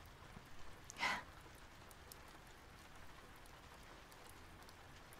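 Quiet room tone, broken about a second in by one short breath out from a woman, a brief sigh.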